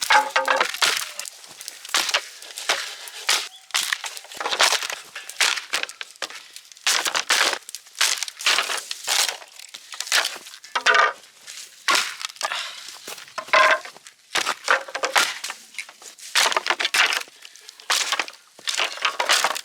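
Junk and broken debris being cleared by hand: irregular crunching and clattering of broken pieces, with occasional short clinks.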